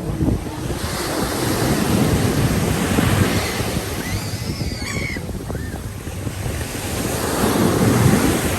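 Sea waves washing onto a beach, swelling and falling twice, with wind buffeting the microphone. A few faint high-pitched cries about halfway through.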